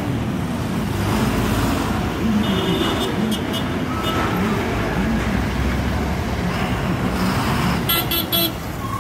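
Busy road traffic: engines of passing army trucks, cars and motorbikes running. Short horn toots sound about two and a half seconds in and again near the end.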